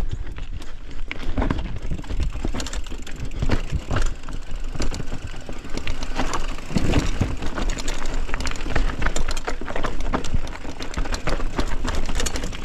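Mountain bike rattling and clattering over rough trail, with dense irregular knocks and clicks over a steady low rumble.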